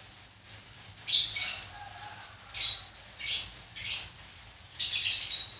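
A bird calling in short chirps, five in a few seconds, the last one longer.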